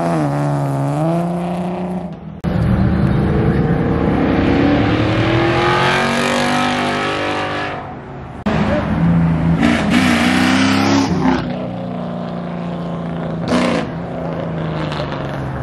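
Car engines accelerating hard past the roadside, one car after another, with abrupt breaks between them. Each pull climbs in pitch and drops back at the shifts. The first car is a Ford Mustang convertible revving as it pulls away.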